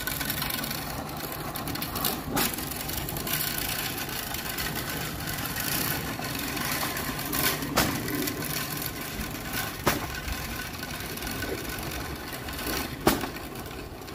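Wheeled push broadcast spreader running as it is pushed over a lawn, its wheels and gear-driven spinner making a steady rattling whirr, with a few sharp clicks scattered through.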